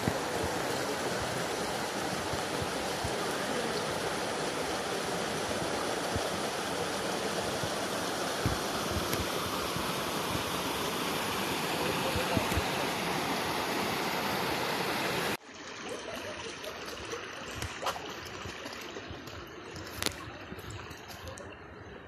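Rocky mountain stream rushing between boulders, a steady noise of running water. A little over two-thirds of the way through it drops suddenly to a quieter flow, with a few sharp knocks.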